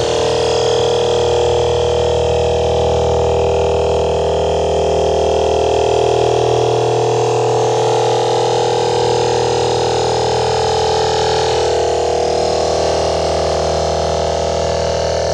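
Steady droning tones, several pitches held together, received on home-built shortwave crystal radio sets and played through loudspeakers; the uploader takes them for HAARP transmitter signals.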